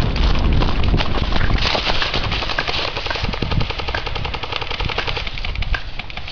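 Airsoft rifle firing rapid full-auto bursts, a fast clatter of sharp cracks that thins out toward the end. A low rumble of wind and handling noise on the moving microphone runs underneath.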